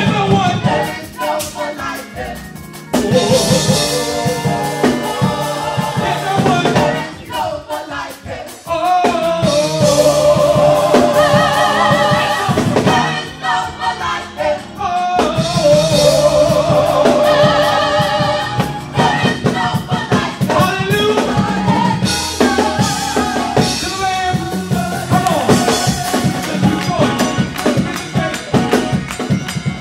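Live gospel group singing: a lead voice and backing choir holding wavering notes over a drum kit.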